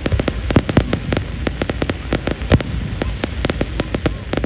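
Aerial fireworks show: shells bursting in quick, irregular succession, several sharp bangs a second over a steady low rumble.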